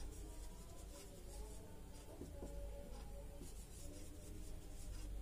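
Faint strokes of a marker pen writing on a whiteboard.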